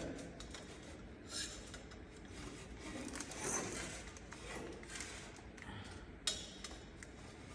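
Faint rubbing, scraping and light clinks of exhaust pipework and fittings being handled, with one sharp click about six seconds in.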